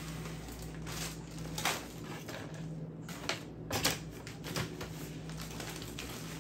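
Crumpled packing paper, plastic bags and cardboard rustling and crinkling as gloved hands rummage through a cardboard box, with a handful of sharp crinkles, the loudest a little under four seconds in.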